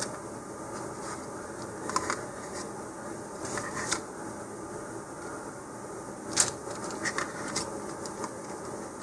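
Scattered light clicks and rustles from handling a vinyl decal and the rocket's clear plastic fins, the sharpest a little past the middle, over a steady room hum.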